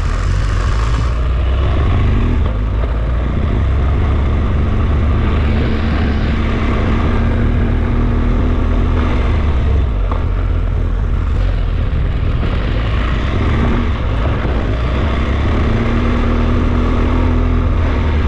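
A car driving: a steady low rumble of road and engine noise that does not change throughout.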